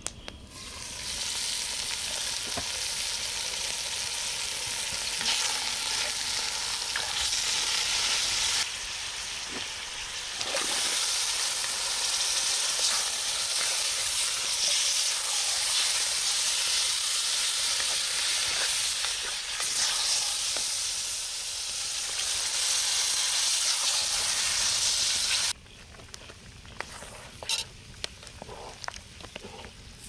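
Vegetables sizzling and frying in a camp oven on campfire coals, stirred with a utensil: a loud, steady hiss. It cuts off abruptly near the end, leaving quieter scattered clicks and scrapes.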